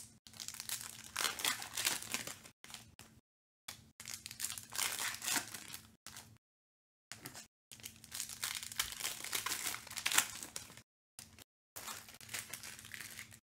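Foil wrappers of Panini Select Football trading-card packs being torn open and crinkled by hand, with the cards handled as they come out. The crinkling comes in four stretches of a couple of seconds each, cutting off abruptly between them.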